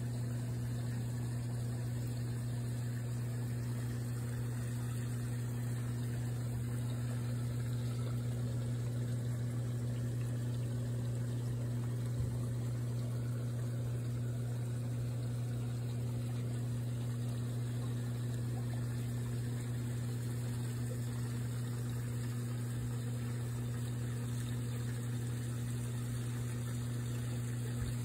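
Steady low mechanical hum of a running motor, unchanging, with a faint tick about twelve seconds in and again near the end.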